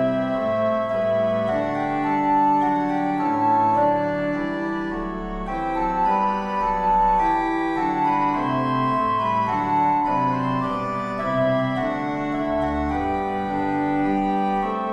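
Organ music: sustained chords moving from one to the next every second or so at a steady, full level.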